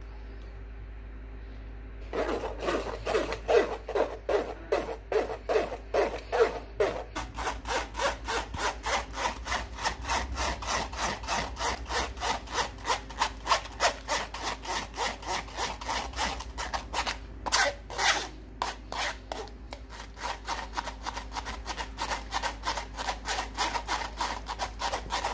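A spoon scraping back and forth against a fine wire-mesh strainer, pressing thick blended puree through it. It starts about two seconds in and runs as a steady rhythm of rasping strokes, about three a second.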